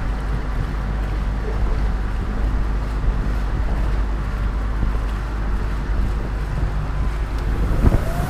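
A 140 hp Suzuki four-stroke outboard drives a small center-console boat at steady speed, with wind buffeting the microphone. There is a single knock near the end, and an electronic music sweep starts rising just after it.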